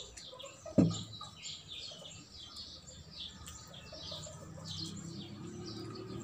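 Small birds chirping repeatedly, short quick high chirps throughout, with a single sharp knock about a second in.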